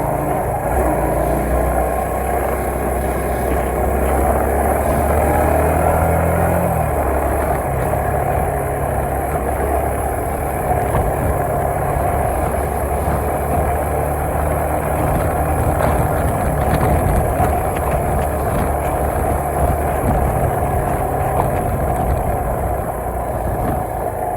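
Suzuki Marauder 125's single-cylinder engine running steadily, its note shifting slightly about six seconds in.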